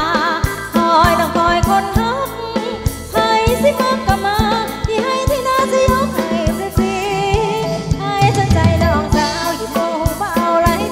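Thai ramwong dance-band music taken straight from the mixing desk: a singer's wavering, ornamented melody over instruments and a steady drum beat.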